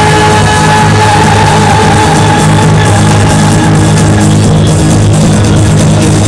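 Loud music played over a stage sound system during a live show, with a steady deep bass pattern and one long held note over the first two seconds or so.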